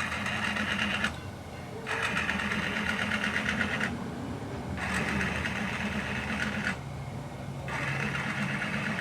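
A small machine's rapid, even clatter, coming in four bursts of one to two seconds each with short gaps, over a steady low hum.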